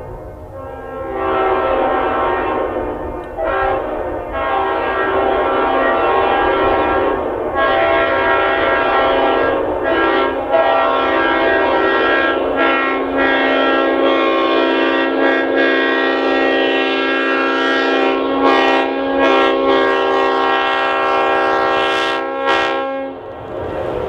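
Leslie RS5T-RF five-chime air horn (1978, standard 31/55 bell reversal) blowing loud chord blasts: a few shorter blasts with brief breaks, then a long, steady blast held for many seconds that cuts off about 23 seconds in.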